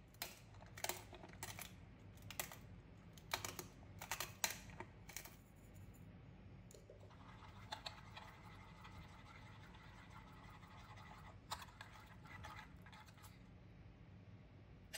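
A fork beating an egg mixture in a ceramic bowl, with light clicks against the bowl. It is separate taps at first, then quicker, steadier scraping and clicking for several seconds.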